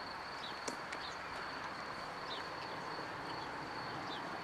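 Countryside ambience: short, falling bird chirps about once a second and a steady high-pitched insect tone over an even hiss, with one sharp click about a second in.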